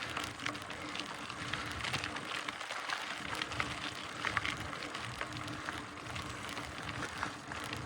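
Mountain bike tyres rolling over a dirt and gravel trail: a steady crackling hiss dotted with small irregular ticks from grit and stones under the wheels.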